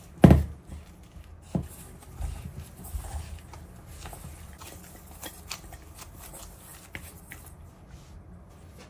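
Sweet potato and tapioca starch being mixed and kneaded into dough in a stainless steel bowl. A spatula knocks against the bowl just after the start, then soft scattered taps and rubbing from gloved hands working the dough.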